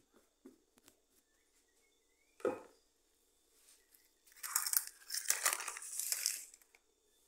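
A single knock about two and a half seconds in, then around two seconds of loud plastic crinkling and rustling from the plastic-coated tablecloth as bread dough is kneaded by hand on it.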